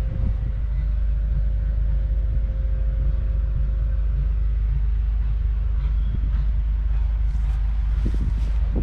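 Nuffield 4/60's 3.8-litre four-cylinder diesel engine idling with a steady low rumble. A few brief rustles come near the end.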